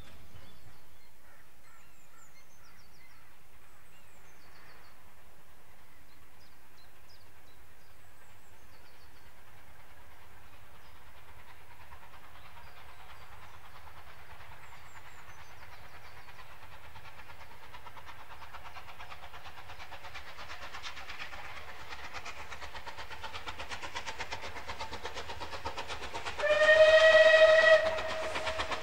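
Bulleid 'Battle of Britain' class three-cylinder steam locomotive 34072 '257 Squadron' approaching under steam, its exhaust beats growing steadily louder. Near the end it sounds its whistle for about a second and a half, the loudest sound.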